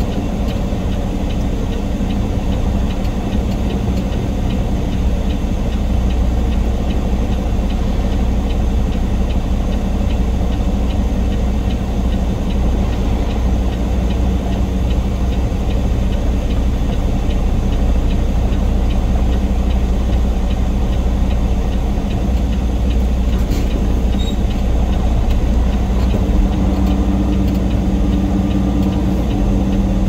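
Semi truck's diesel engine running steadily at low revs.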